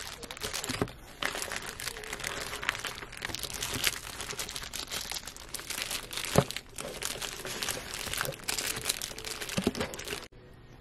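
Plastic bag packaging crinkling and rustling as a satin curler set is handled inside a cardboard box, with many small crackles and one sharper crack about six seconds in. The crinkling cuts off abruptly shortly before the end.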